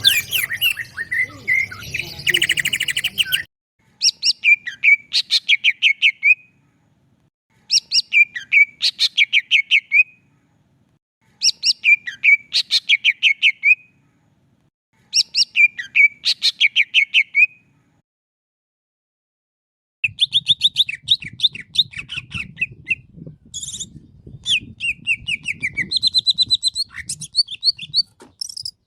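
Green leafbird (cucak ijo) singing loudly: phrases of rapid, evenly repeated high notes, each phrase a couple of seconds long with short pauses between, followed near the end by a longer run of varied, chattering song.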